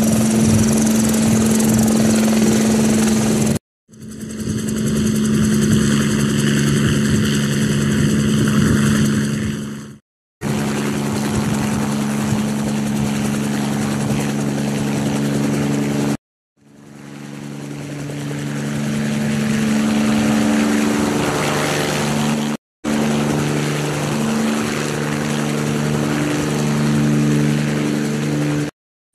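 Helicopter engine and rotor sound, a steady hum with overtones, broken by brief silent gaps about every six seconds; two of the stretches fade in after the gap.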